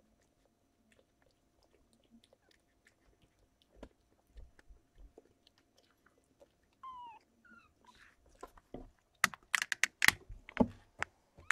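Faint, scattered wet clicking of young kittens suckling at their mother cat, with two short high kitten mews that slide down in pitch about seven seconds in. Near the end come loud close scuffs and knocks against the microphone.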